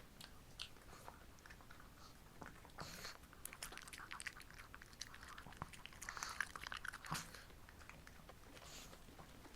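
Shih Tzu dog chewing a homemade treat: a run of small crunching and clicking bites, busiest about three seconds in and again around six to seven seconds in.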